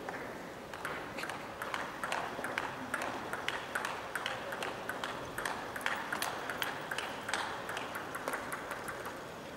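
Table tennis ball clicking back and forth off the rackets and the table in a steady warm-up rally, about three clicks a second, echoing in a large hall.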